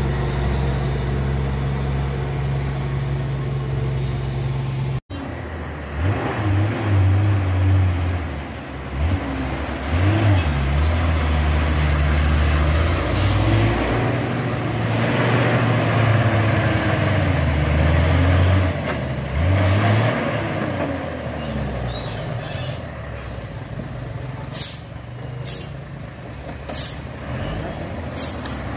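Heavy Hino truck's diesel engine labouring on a steep, slippery climb: a steady low drone, then engine notes that rise and fall as it revs. A thin high whine lasts several seconds, and a few short, sharp air-brake hisses come near the end.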